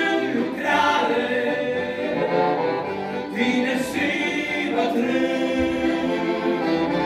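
Male vocal quartet singing a Romanian gospel hymn in close harmony over accordion accompaniment, the voices holding long notes of the refrain.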